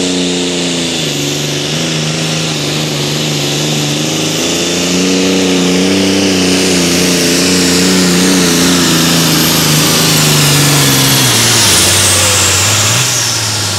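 Super stock pulling tractor's engine running hard at high revs, its pitch dipping about a second in, climbing back and holding, then dropping sharply near the end as the throttle comes off, with a high whine falling away.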